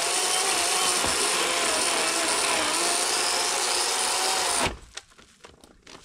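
Worx WG384 40-volt battery electric chainsaw with an 18-inch Oregon bar cutting into a living poplar log, its motor whine wavering in pitch under load. About four and a half seconds in it stops suddenly as the log pinches the bar in the cut, leaving a few light knocks and clicks.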